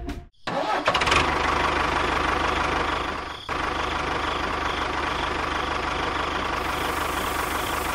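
An engine running steadily, the engine sound of a miniature tractor at work. It breaks off for a moment about three and a half seconds in and then picks up again.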